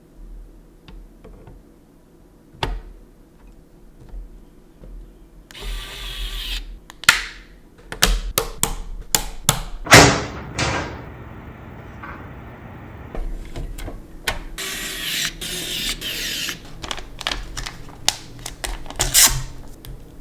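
Computer parts being handled and fitted: a string of sharp clicks and knocks, the loudest about halfway through, with stretches of rustling.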